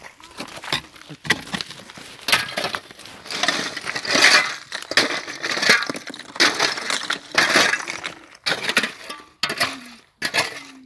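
Ice being chopped and shovelled out of a hole with a long-handled shovel: the blade strikes and scrapes through the ice about once a second, and broken chunks clink and crunch against each other.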